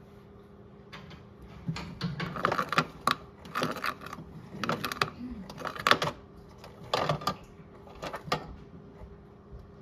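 Modified Miele toy washing machine washing a wet plush turtle: the small motor hums steadily under a run of knocks and water splashes about once a second as the drum tumbles the load, starting about a second in and stopping near the end.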